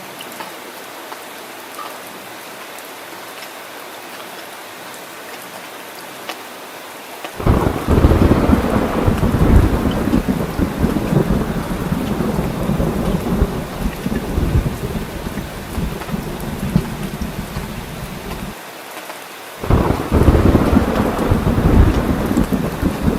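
Steady rain, then a loud rumble of thunder that breaks in suddenly about a third of the way through and rolls on for around ten seconds. It dies back to rain alone, and a second thunder roll breaks in sharply near the end.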